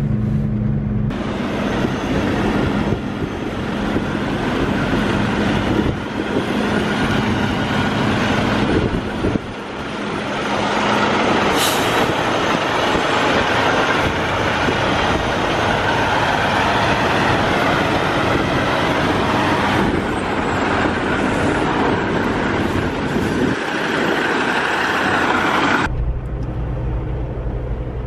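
Semi-truck running in a snowstorm, heard as a broad steady rush of engine noise, with a short sharp hiss about twelve seconds in. Near the end it cuts to the lower, steadier hum of a truck engine heard from inside the cab.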